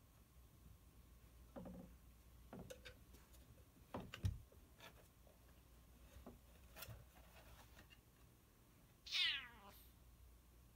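A domestic cat meows once near the end, a single call falling in pitch, which is the loudest sound. Before it come a few faint short sounds and a thump about four seconds in.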